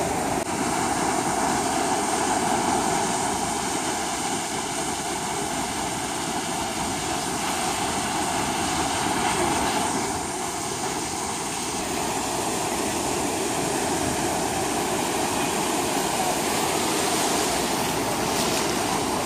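Ocean surf washing onto a beach, a steady rush of water noise.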